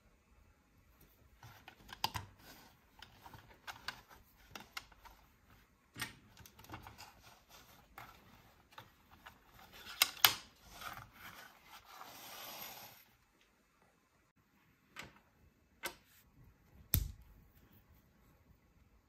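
LEGO plastic bricks clicking and clattering as they are handled and pressed together, a dense run of small clicks. Near the end come a few separate clicks and one louder knock.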